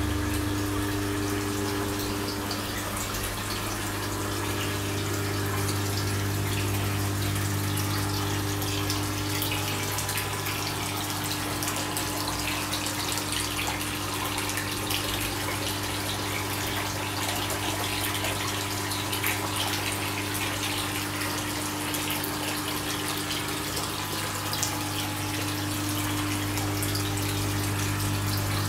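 Water bubbling and splashing in koi holding tanks from aeration and the filter's return flow, over a steady low hum of the pumps.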